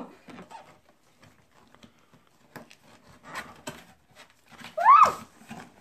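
Cardboard box being handled and opened: scattered light taps and rustles of cardboard and packing, then a short, loud squeal about five seconds in that rises and falls in pitch.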